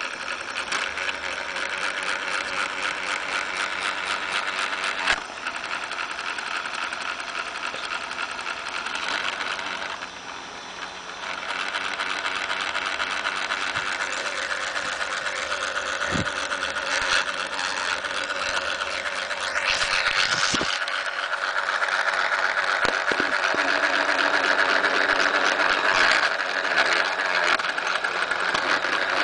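Lego motor driving a train of plastic Lego gears, running steadily with a fast, even gear chatter. It drops briefly about ten seconds in, then comes back stronger.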